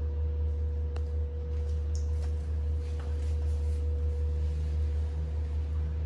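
A steady low hum with a fainter steady higher tone above it, and a few faint clicks about one, two and three seconds in.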